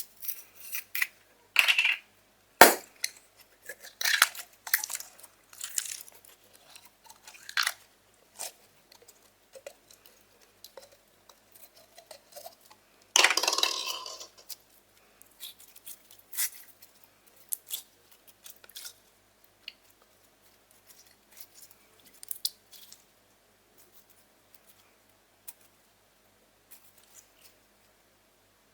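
Slime being kneaded and stretched by hand: scattered sticky pops, clicks and crackles, with a longer squelching stretch about thirteen seconds in, and sparser pops later on.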